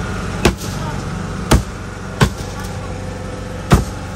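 Cleaver chopping grilled chicken on a wooden cutting board: four sharp, irregularly spaced chops over a steady low hum.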